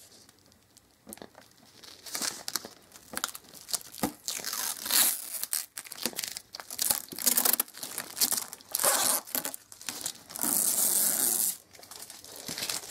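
Packaging being handled: irregular crinkling and rustling, with a loud tearing sound lasting about a second near the end.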